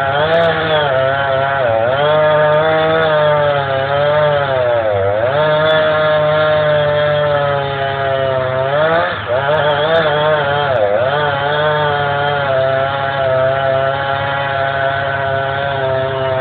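Two-stroke chainsaw running at high revs through a cut in a tree. Its pitch dips several times as it loads up in the wood, then picks back up.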